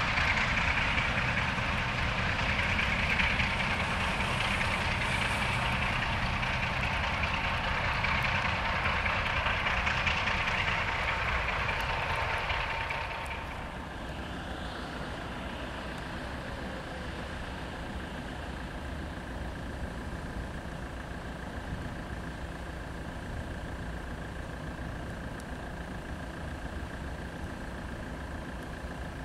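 Electroputere LDE 060-DA diesel-electric locomotive's Sulzer engine running under load as it hauls a train of tank wagons past, with the rumble of the train. About thirteen seconds in, the sound drops to a quieter, steady far-off rumble of the train.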